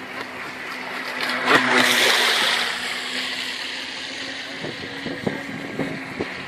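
Radio-controlled model boat running past on the water, growing louder to a peak about two seconds in, then fading as it moves away.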